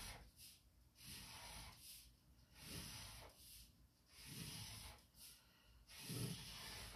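Faint, even breathing through the nose, about one breath every second and a half.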